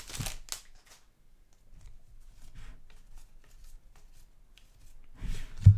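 Basketball trading cards being slid and flipped through by hand, a scattered series of faint soft clicks and rustles, with a dull thump near the end.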